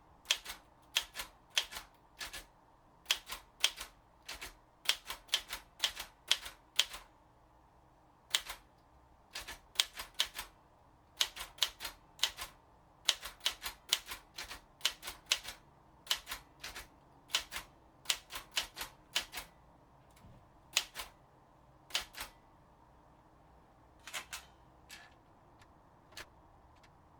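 Underwood 315 manual typewriter being typed on: sharp key strikes in irregular runs with short pauses between them, thinning to a few scattered strikes over the last several seconds.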